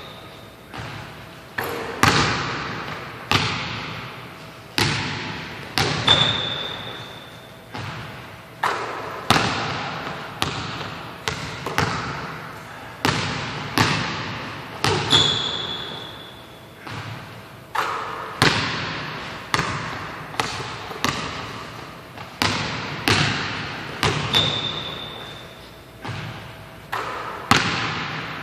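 Basketball dribbled and bouncing on a hardwood gym floor in uneven runs of sharp thuds, each ringing out with a long echo in the large hall. Sneakers squeak briefly three times.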